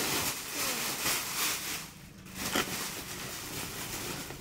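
Rustling and crinkling of packaging as a parcel of stock is wrestled open by hand, in irregular noisy bursts with a short lull about two seconds in.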